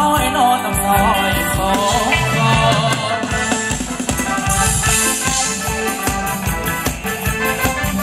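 Live band playing loud Thai ramwong dance music over a PA system, with a steady drum beat.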